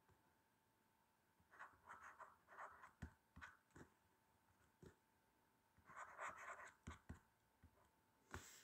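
Faint scratching of a pen writing by hand on a paper page, in two short spells of strokes a few seconds apart.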